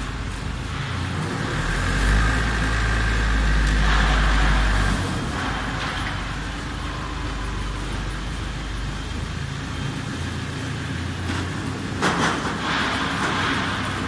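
Engine of a crawler-mounted hydraulic hammer pile driver running steadily as the tracked machine moves, louder and deeper from about two to five seconds in with a held whine. A few sharp clanks come near the end; the hammer is not striking.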